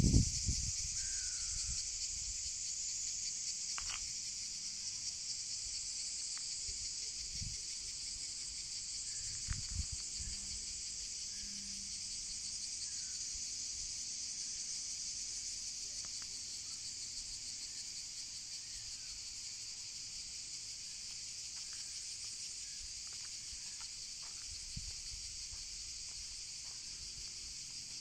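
Outdoor insect chorus: a dense, steady high-pitched buzzing of many insects that does not let up, with a few soft low thumps now and then.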